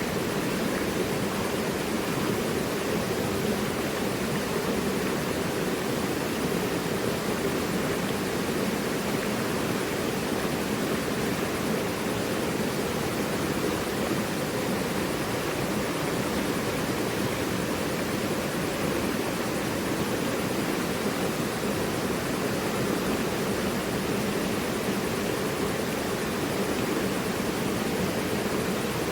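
Mountain river rushing over rocks, a steady full rush of water without breaks.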